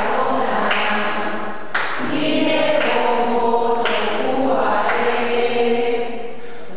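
Group of voices singing an Afro-Cuban folkloric chant together, unaccompanied, in short repeated phrases about a second long. The singing drops quieter about six seconds in.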